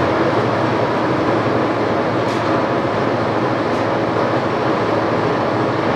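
Sidney Model 16 engine lathe running steadily under power: the herringbone-geared headstock and its spindle turn with an even mechanical running noise and a faint steady hum.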